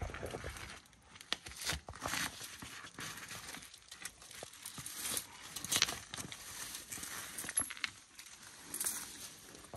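Black-throated monitor lizards moving over a wooden log and enclosure bedding: irregular scratching, crackling and clicking of claws and scales, with a few sharper clicks scattered through.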